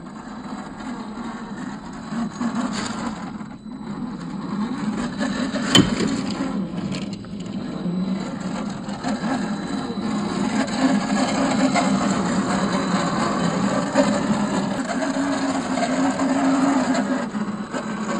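Small electric motor and gears of a 1/10-scale RC crawler whining, the pitch wavering up and down with throttle, over scraping and rumbling of the tyres on the ground. There is one sharp knock about six seconds in, and the sound grows louder through the rest.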